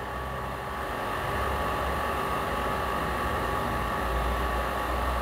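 Steady machine hum with an even hiss, growing slightly louder about a second in.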